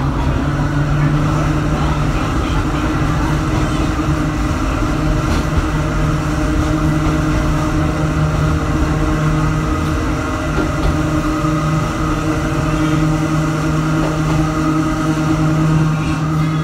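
Interior running noise of Hakone Tozan Railway car 103 under way: a steady low hum with a rumble beneath it.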